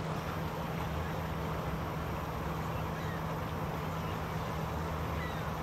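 Steady rush of a shallow stream flowing over rocks, with a low steady hum underneath.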